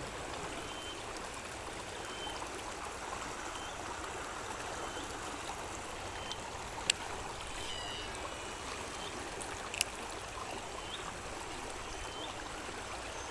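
Fast-flowing river water rushing steadily. There are two sharp clicks, one about seven seconds in and one about ten seconds in, and a faint short high chirp that repeats about every second and a half.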